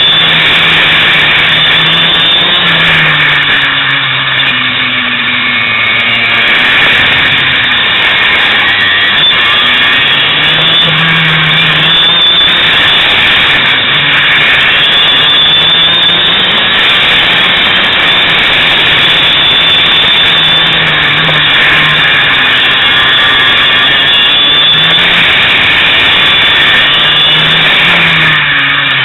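Kart engine heard onboard at close range, revving up and falling back again and again as the kart accelerates out of the bends and lifts for the next ones.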